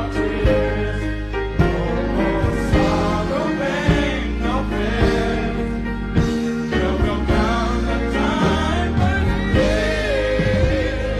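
Gospel music with singing: long, sliding vocal lines held over a band's steady bass and beat.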